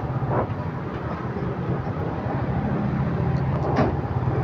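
Motorcycle engine running steadily at low speed, heard from the rider's seat, with two brief sharper sounds about half a second in and near the end.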